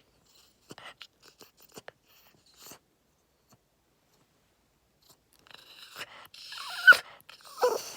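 A dog making scattered light taps and scratches. Near the end come a louder scraping, a sharp click and two short whines that fall in pitch.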